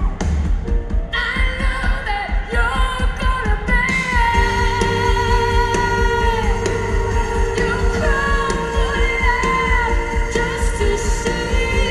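Live band music with a woman singing long, held notes that slide and bend in pitch, over a steady beat.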